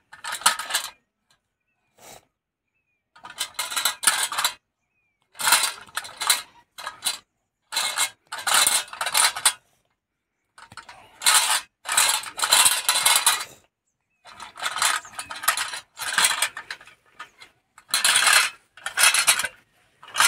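Metal toy tractor and trolley rattling and scraping over gritty, pebbly dirt as it is pushed along, in repeated pushes of about one to three seconds with short pauses between.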